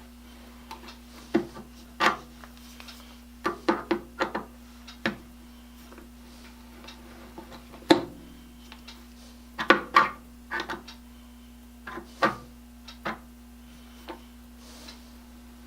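Irregular knocks and clicks of hand tools and metal hardware being handled and set down on a wooden box at a workbench, some with a short metallic ring. A steady faint hum runs underneath.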